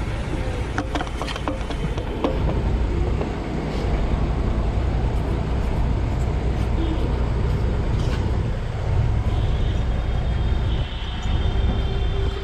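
Steady low machine rumble, like a vehicle engine running, with a few short clicks of tools in the first couple of seconds.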